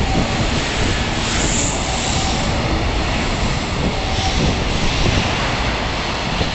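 Freight train's container wagons passing at speed: a steady, loud noise of wheels running on the rails.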